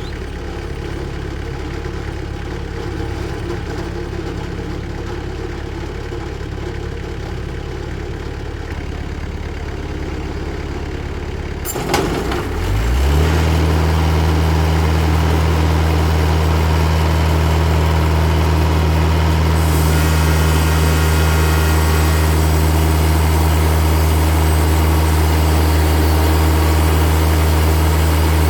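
An engine running steadily at low speed, then a sharp clunk about twelve seconds in, after which the engine rises to a louder, steady run. A steady hiss joins it about twenty seconds in.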